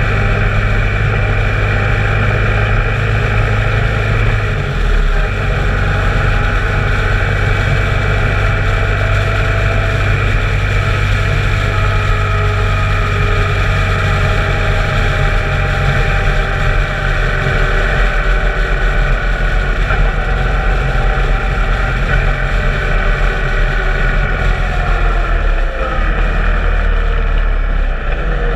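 Motorcycle engine running steadily at road speed under wind rush, heard from on board the bike. The engine note shifts briefly about four seconds in and again near the end.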